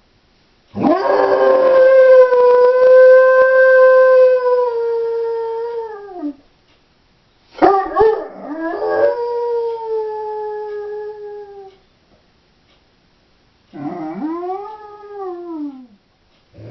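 Doberman howling while left home alone: three long howls, the first held at a steady pitch for about five seconds before dropping away, the last shorter and arching up then down, with a fourth beginning right at the end.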